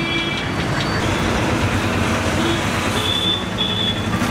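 Steady road traffic noise: the rumble of passing engines, with two short high beeps about three seconds in.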